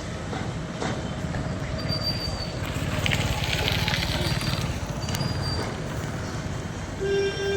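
A vehicle or machine engine running with a steady low rumble. A vehicle horn starts sounding about seven seconds in.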